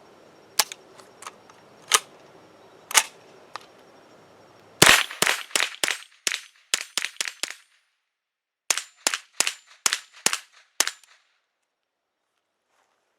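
Semi-automatic .22 LR rifle fire from an AR-15 with a Chiappa M4-22 rimfire upper: a few spaced shots, then a fast string of about a dozen shots, and after a short pause another string of about seven.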